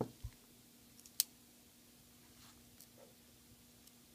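A few faint clicks and taps of small metal tools and watch parts being handled, the sharpest about a second in, over a faint steady hum.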